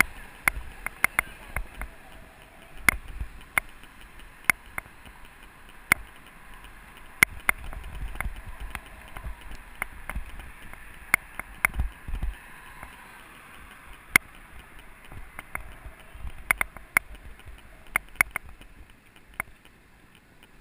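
Mountain bike ridden over sidewalk paving: irregular sharp clicks and knocks as the bike and helmet-camera rig jolt over the bumps, over a low rumble of wind on the microphone.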